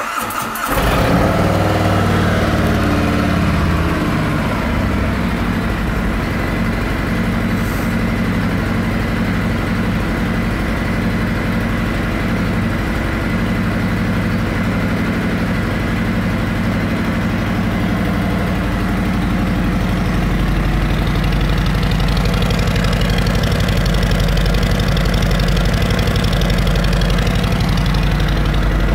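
Harley-Davidson Road Glide's Milwaukee-Eight V-twin with aftermarket slip-on mufflers, cranking and catching at the start, then idling steadily. It gets a little louder about two-thirds of the way through.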